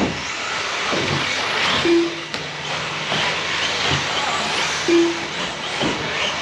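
Electric RC truggies and stadium trucks racing on the track, their brushless motors whining and tyres running over the surface, with a few sharp knocks. A short low beep sounds about two seconds in and again about five seconds in.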